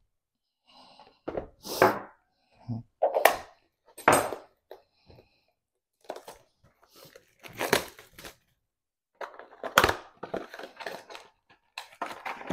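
Cardboard blaster boxes of trading cards being shifted and set down, a series of separate scuffs and knocks. Near the end comes a longer run of ripping and crinkling as a box is torn open.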